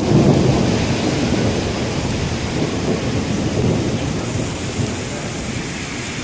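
Thunder rumbling, loudest at the start and slowly dying away, over the steady hiss of a hailstorm.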